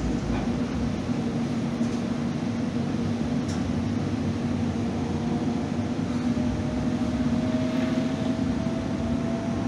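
Interior of a Calgary CTrain light-rail car running between stations: a steady rumble with a constant hum, and a faint whine that rises slowly in pitch through the second half.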